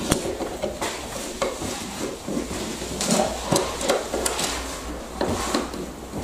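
A screwdriver undoing the faceplate screws of a double wall socket: irregular small scrapes and clicks of the blade turning in the screw heads.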